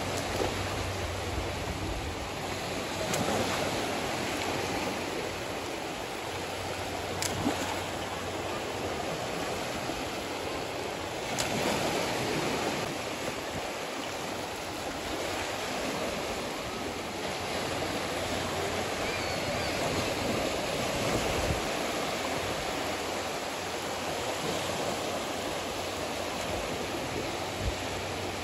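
Small sea waves breaking and washing up a sandy shore in shallow surf: a steady rushing wash that swells and eases as each wave comes in.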